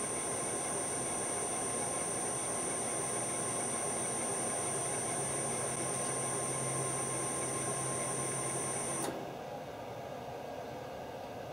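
Lathe's three-phase motor running under a variable frequency drive, a steady mechanical run with a high-pitched whine from the drive. It cuts off suddenly about nine seconds in as the lathe stops, leaving a quieter steady hum.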